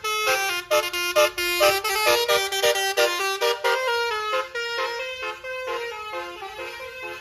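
A bus's basuri 'telolet' multi-tone horn playing a fast tune of quick, stepping notes. It fades gradually over the last few seconds.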